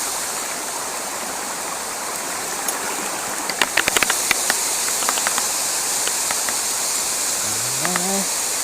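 Steady rushing water of a waterfall. About halfway through comes a quick run of sharp clicks, and a short rising call of a voice comes near the end.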